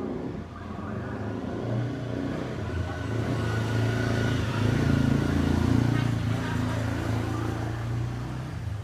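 Restored Hailea aquarium air blower running with a steady electric-motor hum, growing louder toward the middle and easing off near the end.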